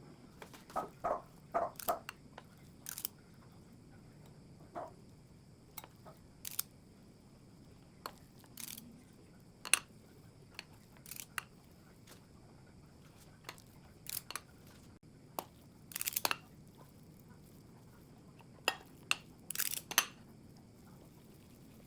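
Breadcrumbs crunching and rustling in short, irregular bursts as croquette balls are rolled and pressed in them, with occasional sharp light clicks.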